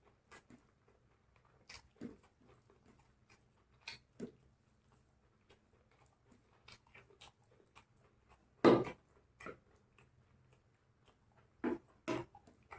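Chewing and biting into a chicken leg piece: scattered short crunches and mouth clicks with quiet gaps between them. The loudest bite comes about nine seconds in, and two more come close together near the end.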